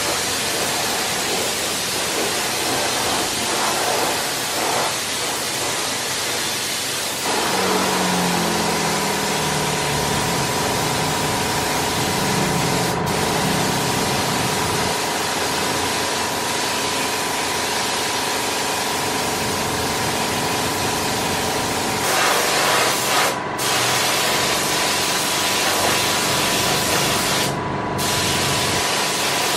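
Compressed-air gravity-feed spray gun hissing steadily as it sprays black paint onto motorcycle body panels, the hiss cutting out briefly twice near the end. A steady machine hum joins in about seven seconds in.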